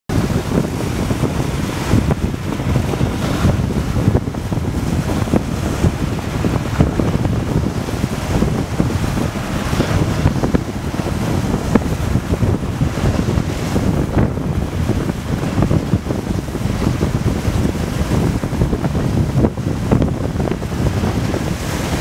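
Strong wind buffeting the microphone with a steady low rumble, over choppy lake waves washing and splashing across a boat dock.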